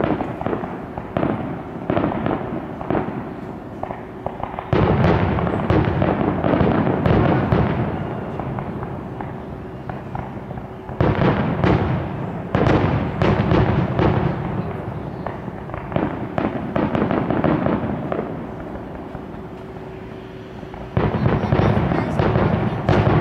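Aerial fireworks shells bursting in a rapid run of bangs and crackles. It gets suddenly louder and denser about five seconds in, again around eleven seconds, and once more near the end.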